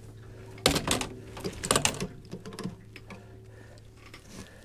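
Rattling and clattering in the boat as a freshly netted catfish and the landing gear are handled: two quick bursts of clicks about 1 and 2 seconds in, then a few fainter ones, over a steady low hum.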